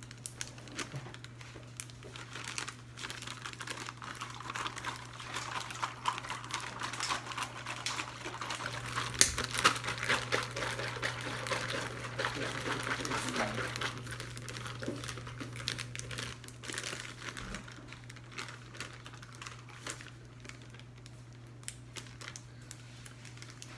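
MRE plastic pouches and wrappers crinkling and rustling as they are handled, busiest in the middle, over a steady low hum.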